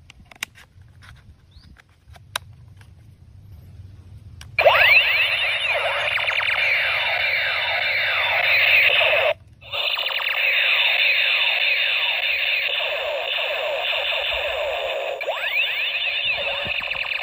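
Battery-powered toy assault rifle's electronic sound module. A few light plastic clicks come first, then about four and a half seconds in a loud, continuous stream of rapid, overlapping falling laser-style firing tones starts. It breaks off for a moment about nine seconds in, then carries on.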